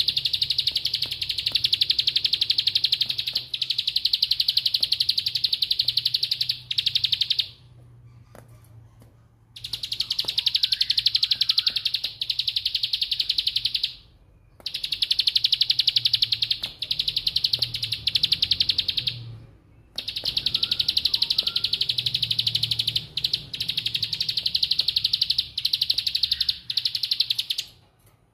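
Caged plain prinia (ciblek sawah) singing its 'ngebren' song: long, very fast rattling trills, high-pitched, in four bouts of several seconds each with short pauses between. The rattle is likened to the clacking of lato-lato balls.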